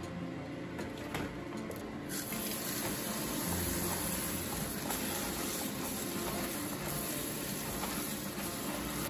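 Kitchen tap running steadily onto salad leaves in a plastic colander in the sink while hands wash them; the water comes on about two seconds in.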